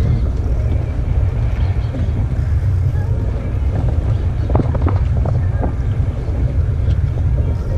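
Wind buffeting the microphone, a steady low rumble, with a few short knocks a little over halfway through.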